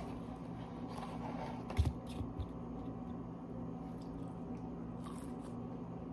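A single crunchy bite into a crispy fried chicken tender about two seconds in, followed by a couple of small crunches of chewing, over a steady low hum.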